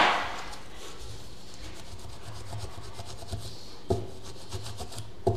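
Scraping and rubbing on a circuit board as a replacement electrolytic capacitor is fitted, with a sharp click at the start and soft taps about four and five seconds in.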